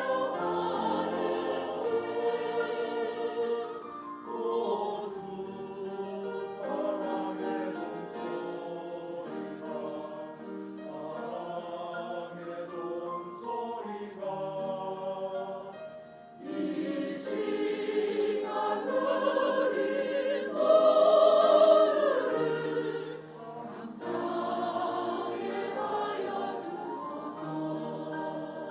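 Church choir singing a slow anthem in sustained, held notes. The sound dips briefly about halfway through, then swells to its loudest about twenty seconds in before easing back.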